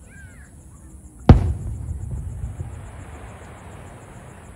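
An aerial firework shell bursting with a single sharp bang about a second in, followed by a rumbling echo and a crackling hiss that fades over the next few seconds.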